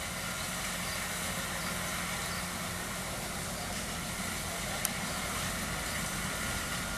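Combine harvester's engine running steadily, with a single sharp click just under five seconds in.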